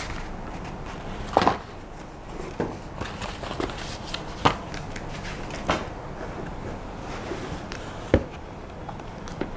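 Rigid cardboard packaging being handled: a few scattered knocks and taps as the box lid and inserts are lifted out and set down, the strongest about a second and a half in, with sharp ones near the middle and toward the end.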